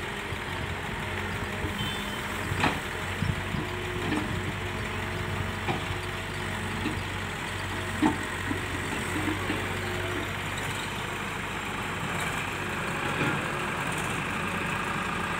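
Diesel engines of a Kato HD250 excavator and farm tractors running steadily, with a few sharp knocks as the excavator bucket dumps soil into a steel tractor trolley, the loudest about eight seconds in. Near the end a tractor engine's note rises as it pulls the loaded trolley away.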